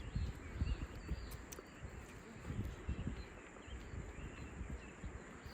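Small songbirds chirping faintly in a forest, short high chirps scattered throughout, over a low uneven rumble.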